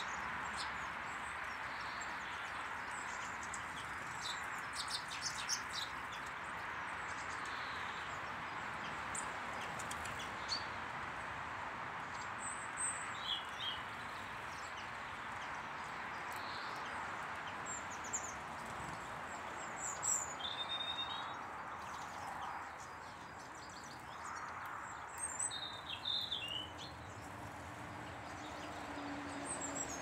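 Small garden songbirds chirping and twittering now and then, with a few brief clusters of calls, over a steady rushing background noise. A low steady hum comes in near the end.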